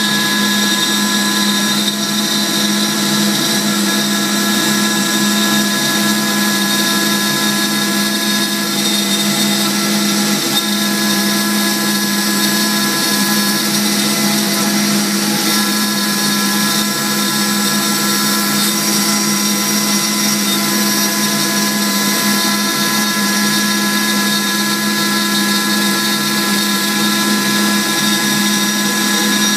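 CNC router spindle running steadily at high speed while cutting a sheet, together with the air rush of its dust-collection hose: a constant motor whine with several fixed tones over a hiss.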